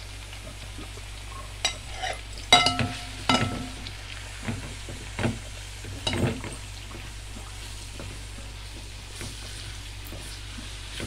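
Sliced onions sizzling in hot coconut oil in a metal pan while a spoon stirs them, knocking and scraping against the pan about seven times in the first six seconds, a couple of the knocks ringing. After that only the steady sizzle and a few light scrapes remain.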